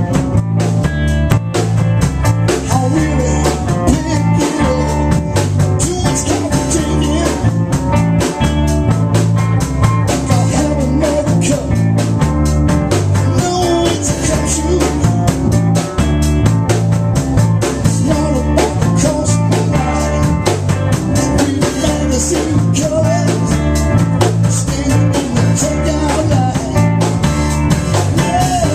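A blues-rock band playing live in an instrumental passage with no singing: drum kit keeping a steady beat with rimshots, bass and electric guitar.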